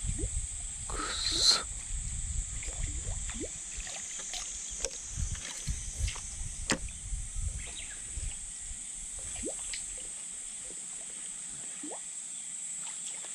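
Water sloshing and splashing around a small float boat, with a louder splash about a second and a half in, over a steady high hiss.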